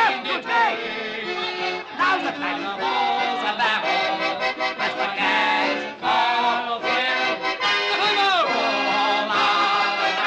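Accordion-led beer-hall band music with a man singing along over it.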